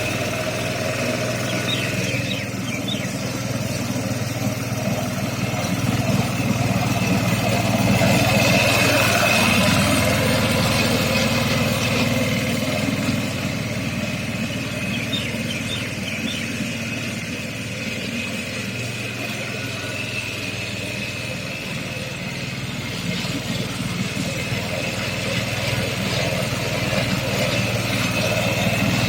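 Diesel lawn mower engine running steadily while cutting grass. It grows louder for a few seconds about a third of the way in, eases off, then builds again near the end.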